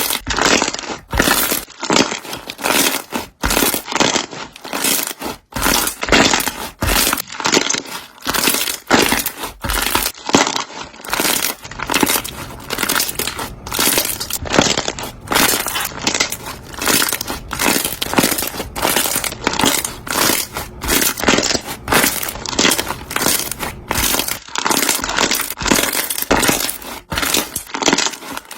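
Slime being squeezed and pressed by hand close to the microphone, popping its trapped air bubbles in a dense, uneven run of pops, several a second.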